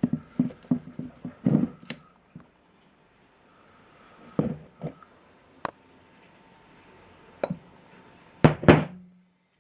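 Metal engine parts clinking and knocking as they are handled on a workbench. There is a quick run of light clicks at first, then scattered single knocks, with a louder pair near the end.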